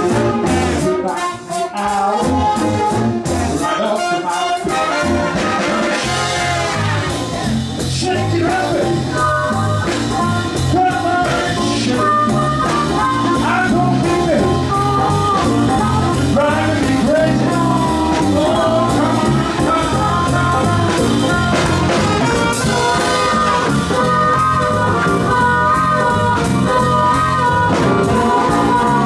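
Live band music led by brass instruments, trumpets and trombones, over a steady beat.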